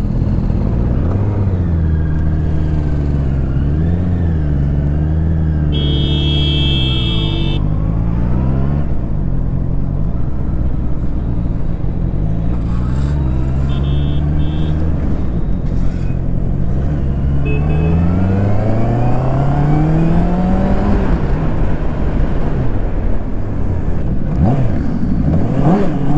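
Honda CBR650R's inline-four engine pulling away and riding on, the revs rising and falling through gear changes, with one long rising climb about two-thirds through. A vehicle horn sounds for about two seconds roughly six seconds in, and briefly again about halfway.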